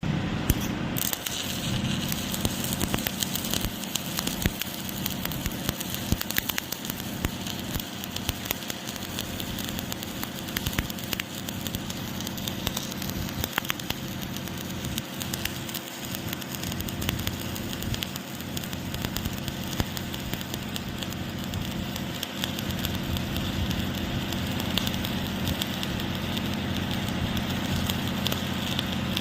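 Electric arc welding: the arc crackling and sizzling steadily, with a low machine hum underneath.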